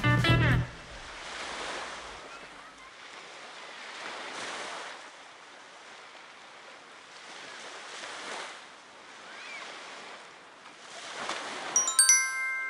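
Small waves washing onto a sandy beach, swelling and easing every few seconds. Near the end a small bell rings sharply a few times: a bite bell on a surf-casting rod tip, signalling a fish biting.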